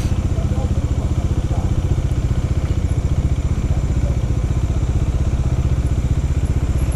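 Bajaj Dominar 400's single-cylinder engine running steadily at an even pulse as the motorcycle rolls along.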